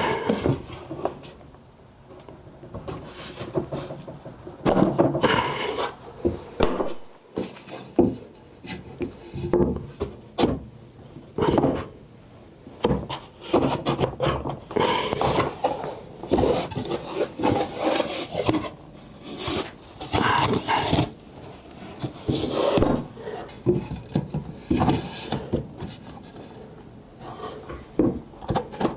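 Wooden drawer parts being handled and worked together: irregular rubbing and scraping of wood on wood, with sharp knocks now and then.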